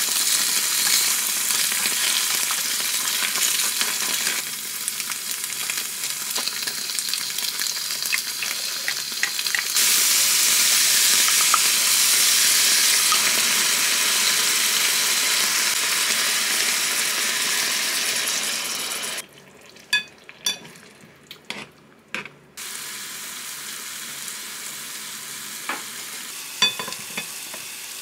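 Food sizzling as it fries in a pan, a dense steady hiss. About 19 seconds in the sizzle drops away for a few seconds, leaving a few sharp clicks, then comes back quieter.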